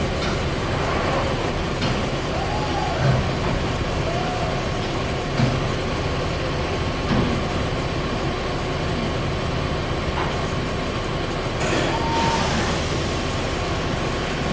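Kitamura MyCenter HX1000i horizontal machining center cycling through a simulated tool change: a steady machine hum with occasional short clicks and clunks, and a brief hiss about twelve seconds in.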